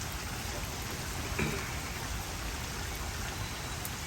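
Heavy rain falling steadily in a thunderstorm, with one brief knock about a second and a half in.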